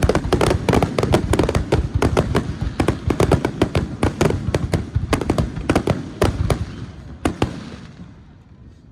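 Fireworks: a rapid, dense volley of bangs, several a second, thinning out and fading away over the last couple of seconds.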